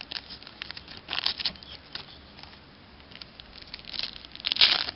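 Crinkling and tearing of a baseball card pack wrapper being handled and opened, in short irregular bursts, loudest about a second in and again near the end.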